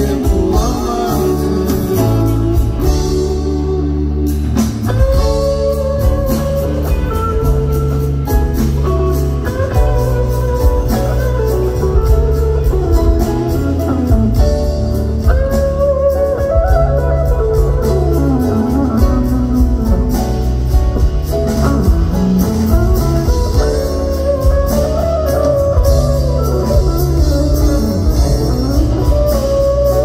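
Live band playing, with an electric guitar taking a melodic solo that slides and bends in pitch over steady bass and drums.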